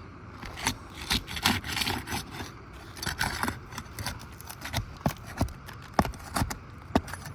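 Irregular scrapes and sharp clicks of a metal pry bar working under asphalt shingles, breaking the seal to lift a wind-damaged shingle free.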